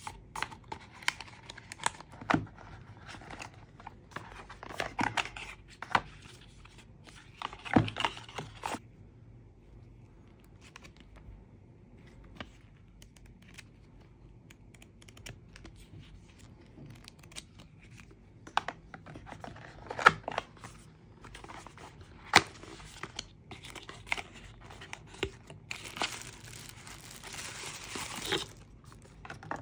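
Product packaging being opened by hand: tearing and crinkling of wrapping, broken by irregular sharp clicks and knocks. A longer, denser stretch of crinkling comes near the end.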